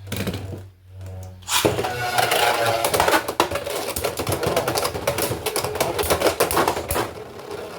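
Beyblade X spinning tops launched into a plastic stadium and battling. A dense run of rapid clicking and rattling from hits and scraping against each other and the stadium starts about one and a half seconds in.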